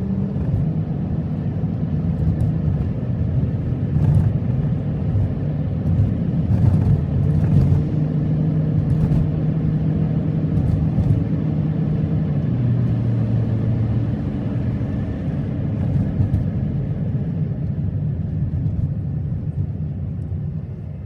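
Car driving, heard from inside: a steady low rumble of engine and road noise, the engine hum shifting in pitch now and then as the speed changes.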